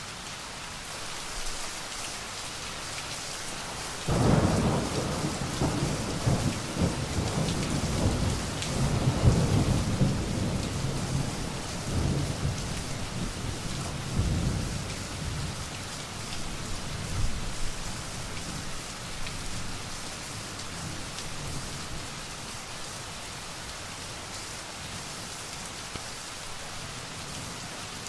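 Steady rain, with a thunderclap breaking suddenly about four seconds in and rolling on in swells for some fifteen seconds before it fades, leaving the rain alone.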